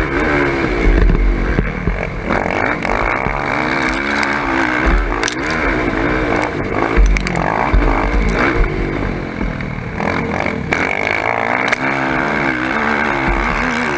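Sport ATV's engine revving up and down again and again as the quad is ridden hard, heard from a camera mounted on the machine, with wind buffeting the microphone and a few sharp knocks over bumps.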